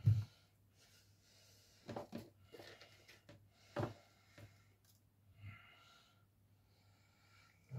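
Handling noises: light knocks and paper rustling as paper cut-outs and a clear plastic storage box are moved about on a cutting mat. The loudest knock comes right at the start, with two more about two and four seconds in.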